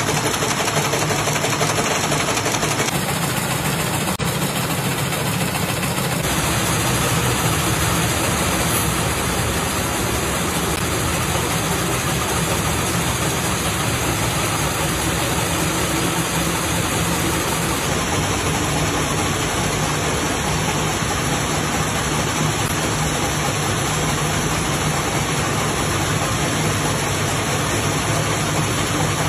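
Wire nail-making machines running, a loud, steady mechanical din with a low hum under it.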